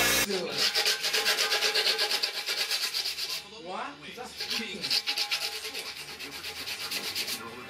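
Hand sanding of a rusted steel tractor gas tank with a sheet of sandpaper: quick back-and-forth rubbing strokes, with a short break a little after three seconds in. This is the tank being smoothed down during its rust repair.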